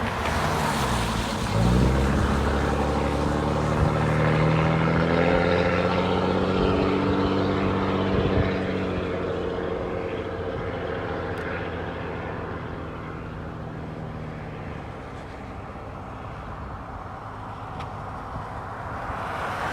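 Motor vehicle engine running: its note drops in the first couple of seconds, then holds steady and rises slowly before fading away over the second half.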